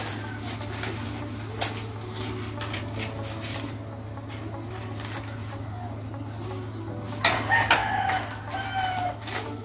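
A steady low hum, one sharp click about a second and a half in, and a loud bird call with rising and falling pitch near the end.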